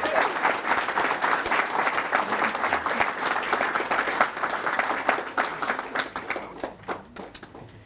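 Wedding guests applauding, a dense run of clapping that thins out and fades over the last two seconds.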